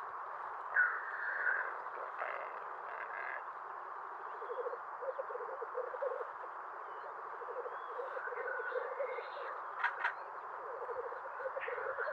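Rackelhahn, the hybrid of western capercaillie and black grouse, giving its odd displaying calls: a few short harsh calls, then three series of rapid croaking rattles, against a steady background noise.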